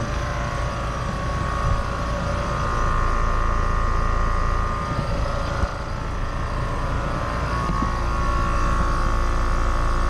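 Brand-new American Standard Silver 14 heat pump outdoor unit (4-ton, 14 SEER) running. Its Genteq condenser fan motor and Alliance scroll compressor give a steady whir and hum, with a steady high tone on top.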